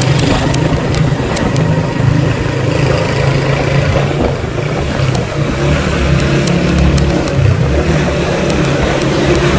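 A motor vehicle's engine running close by and loud, its pitch shifting as it changes speed.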